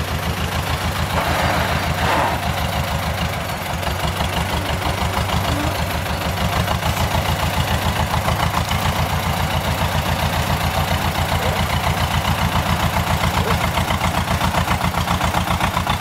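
Small diesel tractor engine running with a steady low chugging pulse, growing slightly louder in the second half.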